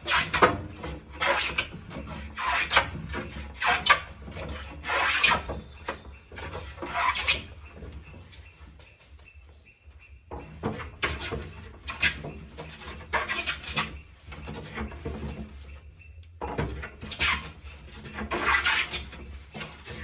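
Hand tool working wood: repeated rasping strokes, about one a second, in three runs broken by two short pauses.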